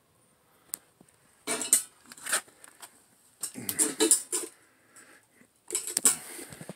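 Household clutter clinking and rattling as it is disturbed underfoot, in three short clusters of clatter with quiet between.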